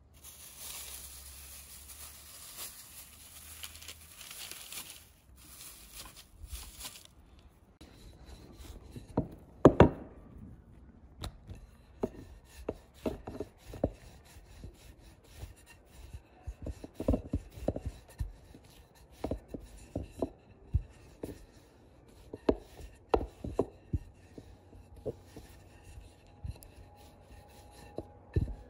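A hissing rustle for the first several seconds. Then a wooden rolling pin rolling out thin dough on a tabletop: wood rubbing on the surface, with irregular knocks and taps, the loudest about ten seconds in.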